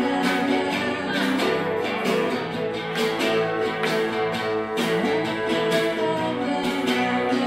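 Acoustic guitar playing live, strummed chords ringing over sustained notes.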